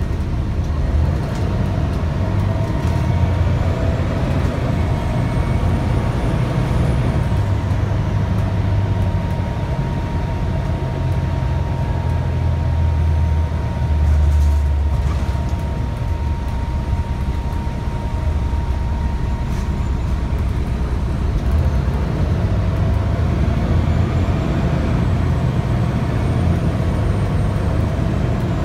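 Cabin of a 2001 Gillig Low Floor transit bus under way: steady engine and road rumble, with a faint high whine that rises twice, near the start and near the end.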